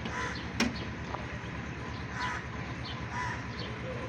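A crow cawing three times over the steady low pulsing of an idling engine, with one sharp click just after the first call.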